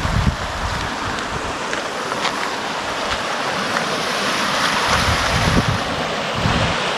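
Fast-flowing river rapids rushing steadily, with wind buffeting the microphone in low gusts near the start and again around five and six seconds in.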